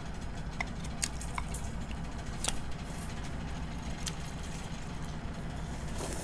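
Table eating sounds: a few light clicks of chopsticks against ceramic bowls, and noodles slurped near the end, over a steady low hum.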